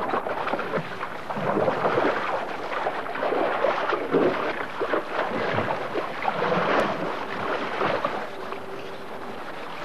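Elephant calves wallowing in shallow muddy water, making irregular splashing and sloshing.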